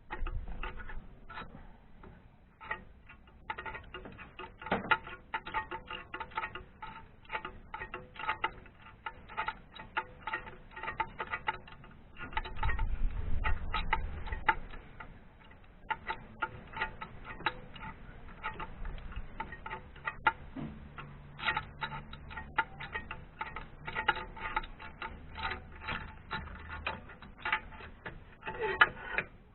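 Ratchet wrench clicking in quick, uneven runs, with metal tools clinking, as spark plugs are worked on.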